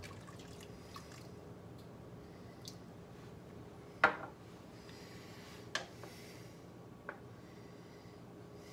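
Vinegar trickling from a small bottle into a steel pot of cooking pasta shells, then a wooden spoon stirring and knocking against the pot a few times, the sharpest knock about four seconds in, over a faint steady hum.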